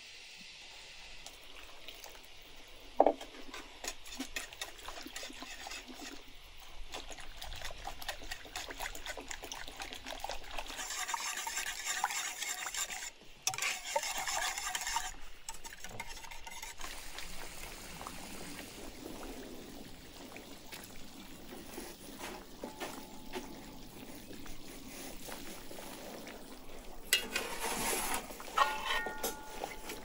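Wire whisk beating a thick, creamy herb sauce in a wooden bowl: rapid scraping and clicking of the metal tines against the wood, busiest in the middle. Near the end, a metal skimmer clatters against the pan with a brief metallic ring.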